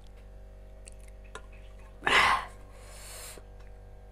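Cooked rice being tipped and scraped out of an aluminium pot onto a metal plate: one short rushing scrape about two seconds in, with a faint steady hum underneath.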